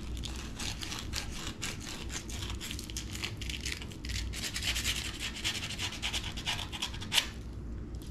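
Sandpaper rubbing back and forth on a rusty steel trailer hitch pin in rapid short strokes, scouring off the rust by hand. There is one sharper tick about seven seconds in.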